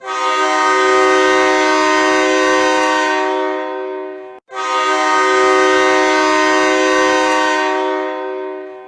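Hockey arena goal horn, an air horn sounding several tones at once in a chord, blown in two long blasts of about four seconds each with a brief break between them.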